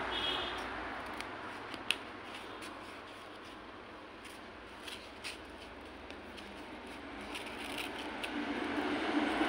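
Scissors snipping through glitter EVA foam, then light clicks and rustles of the foam pieces being handled, with one sharper click about two seconds in, over a steady background hiss.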